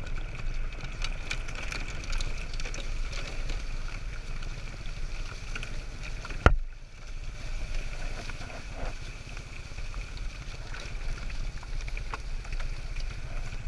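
A sled-dog team's rig rolling over a dry forest trail behind the running dogs: a steady rumble with wind on the microphone and small rattles. One sharp knock comes about six and a half seconds in.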